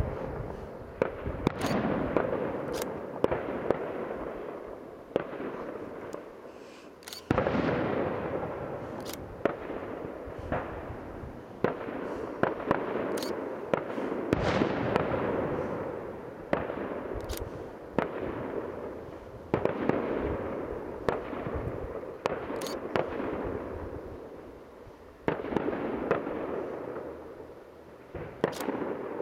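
Aerial firework shells bursting in a professional display: sharp bangs in irregular succession, each followed by a broad rolling rumble that fades over a few seconds. Three heavier booms, about a quarter, halfway and near the end, set off the longest rumbles.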